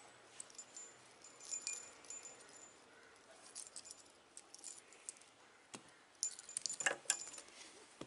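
Small brass bell on a macrame cat collar tinkling, with a metal key ring clinking, as the collar is handled. A quick run of clinks and a knock comes near the end as the collar is set down.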